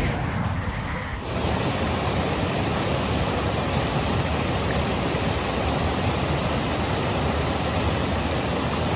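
Steady rushing of water, an even noise with no pitch that sets in about a second in.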